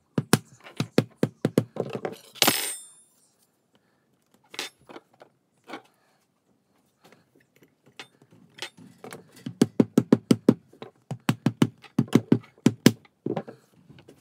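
Rubber mallet tapping a plastic glazing bead into the window frame, in quick runs of light knocks about five a second. There is a single sharper crack about two and a half seconds in, a few scattered clicks, and a second run of taps in the latter half.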